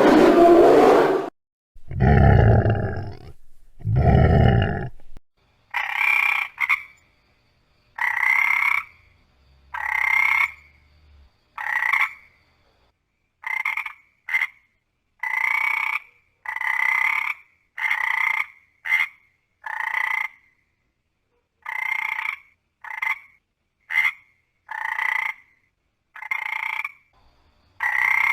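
A frog croaking over and over in short separate calls, roughly one a second. In the first five seconds there are instead a few loud, low, drawn-out sounds.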